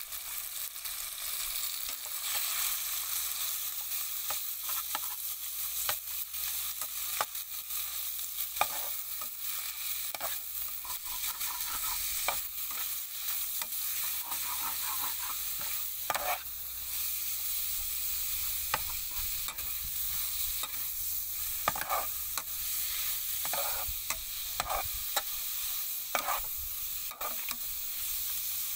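Sliced pork sizzling as it fries with garlic in a hot frying pan, a steady hiss. A metal spoon stirs the meat, clinking and scraping against the pan many times, more often in the second half.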